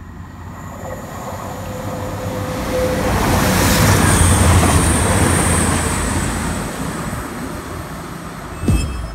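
CrossCountry Voyager diesel multiple unit passing through the station at speed. Its engine and wheel-on-rail noise build as it approaches, are loudest about halfway through with a high whine as the carriages go by, then fade as it runs away. A brief click near the end.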